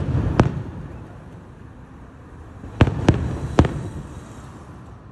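Distant aerial firework shells bursting: two bangs right at the start, then three more in quick succession about three seconds in, each trailing off in a low rumble.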